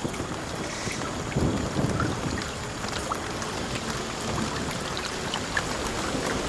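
Rain falling on rainforest foliage: a steady hiss with many separate drops heard hitting leaves. Low thunder rumbles in the background, swelling about one and a half seconds in. These are the first drops ahead of a heavy downpour.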